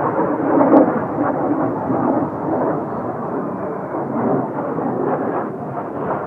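Kawasaki T-4 jet trainers in flight, a loud rumbling roar of their turbofan engines. A sharp click sounds about a second in.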